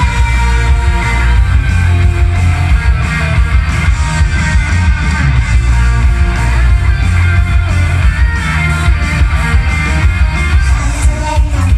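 Idol pop song with electric guitar and heavy bass, played loud over stage PA speakers; a mostly instrumental stretch of the song.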